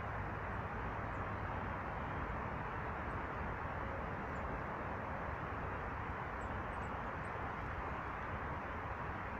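Steady outdoor background rumble with a few faint, high bird chirps, several of them close together about two-thirds of the way through.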